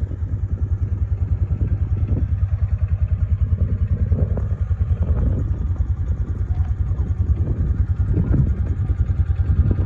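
Kawasaki Mule SX's single-cylinder engine idling, a steady fast low putter with some light clatter over it.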